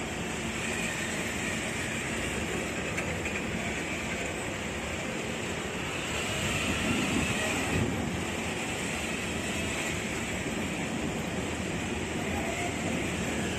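Tourist train's passenger carriages and van rolling slowly past on the track: a steady rumble of wheels on the rails.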